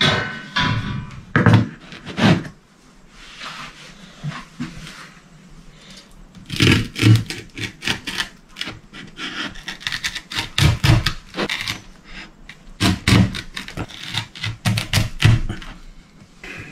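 Large kitchen knife cutting through a baked pizza on a wooden chopping board: a few knocks at the start, then three runs of quick strokes with the blade scraping and knocking on the board.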